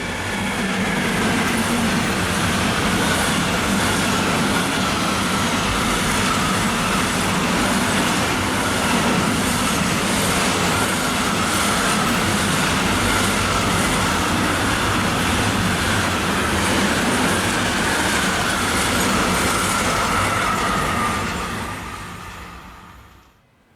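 A train passing through a railway station: a loud, steady rush and rumble with an even, rhythmic clatter of wheels, fading away over the last few seconds.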